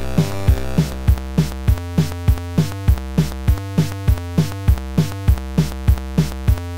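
Electronic background music: synthesizer notes and chords over a steady drum-machine beat of about two strikes a second.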